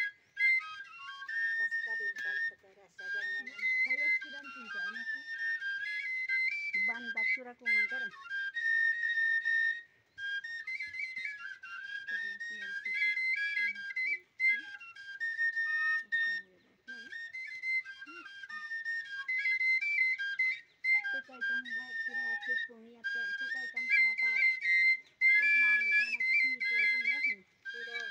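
Three small end-blown cane flutes played together in a high melody, an old dance tune, in short phrases with brief breaks between them.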